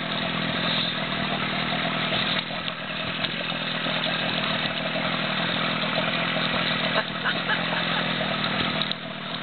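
A dinghy's outboard motor running at a steady speed.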